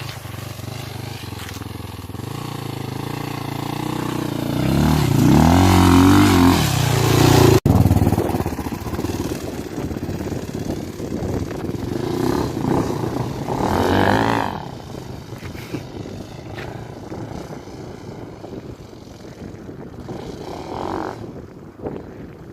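Single-cylinder four-stroke motorcycle engine, a Honda Tornado bored to 293 cc with an Athena kit and a 296 cam. It revs up hard a few seconds in, revs again near the middle, then drops back to a quieter, lower running sound.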